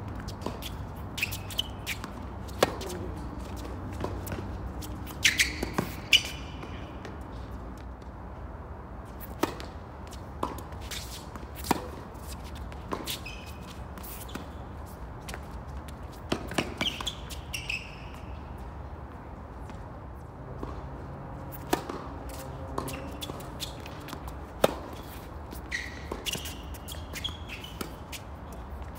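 Tennis rally on a hard court: sharp pops of racket strikes and ball bounces, a second or more apart, with a few short high shoe squeaks, over a steady low hum.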